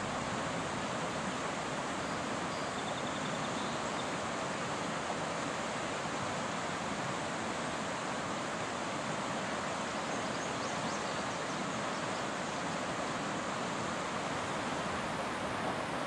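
Steady, even rushing noise with no gusts or breaks, with faint high chirps about three seconds in and again near ten seconds.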